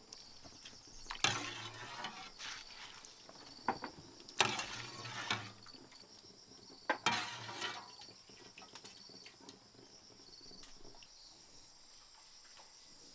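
Ladlefuls of hot water poured from a wok and splashing over chicken gizzards in a bamboo basket, three pours about a second each, with a few sharp clinks of the ladle between them.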